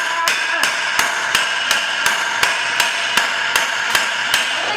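A hammer striking metal in an even rhythm, about three ringing blows a second, knocking a control arm out of a Miata's front suspension.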